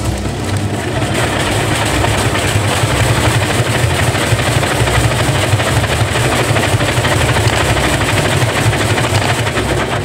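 Front-loading washing machine spinning its drum fast with wet, sudsy laundry inside: a steady, loud low hum from the motor and drum with churning noise over it.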